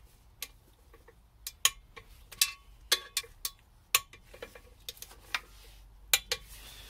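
Irregular sharp metallic clicks and clinks of a torque wrench on the clutch pressure plate bolts of a Triumph Stag, about a dozen in all, several with a short ring.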